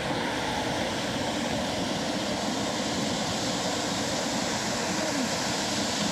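Steady rushing roar of a waterfall falling into a flooded slate mine, heard through the tunnel.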